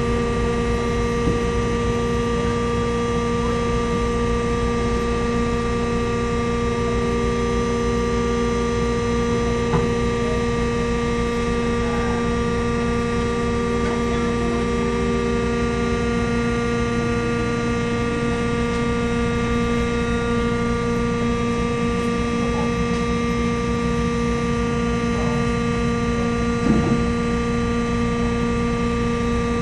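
Ferry New Koshiki's engines and shipboard machinery running steadily as it moves off the quay: a low rumble with several steady hum tones, one of which drops out about halfway through.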